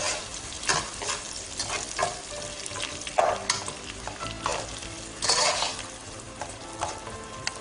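Chopped onion sizzling as it fries in hot oil in a pan, stirred with irregular scraping strokes of a spoon. The onion is being sautéed until it turns soft and pink.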